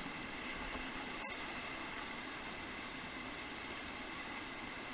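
Steady rush of whitewater on the Ocoee River, heard as an even hiss from the raft, with a brief dropout about a second in.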